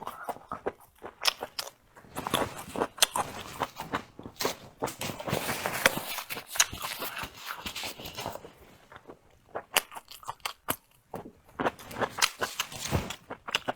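Close-miked eating: chewing and biting into food, with crunching clicks and wet smacking, heaviest in the first half.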